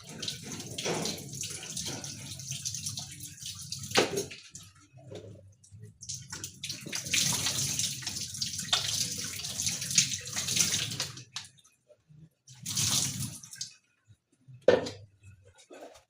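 Water running from a sink tap as hands are washed under it, the flow splashing and breaking off now and then. A short splash near 13 s and a sharp knock a little later close it off.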